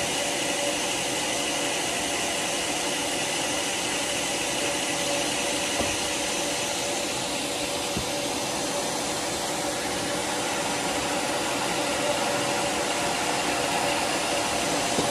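Homemade sawmill running steadily without cutting, a continuous machine hum. Two faint knocks come about six and eight seconds in.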